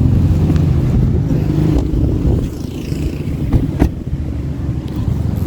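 A car engine running with a steady low hum, and a single sharp click about four seconds in.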